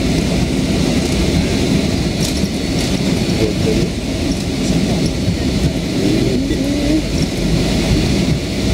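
Cabin noise of a Boeing 757-300 rolling out on the runway just after landing: a loud, steady rumble of the engines and the landing gear running over the runway surface, with a hiss above it.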